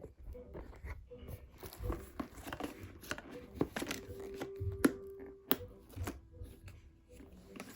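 Handbag and packaging being handled: rustling and crinkling, with several sharp clicks around the middle.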